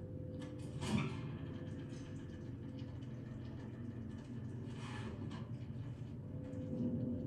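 Low, steady rumbling drone with a thin steady hum from a TV drama's soundtrack, with two brief soft hissing noises, about a second in and about five seconds in.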